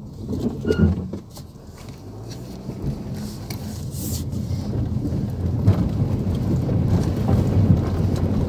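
Four-wheel-drive vehicle wading along a shallow river ford, heard from inside the cabin: the engine running under load and water churning against the wheels and body, building steadily louder, with a few sharp knocks.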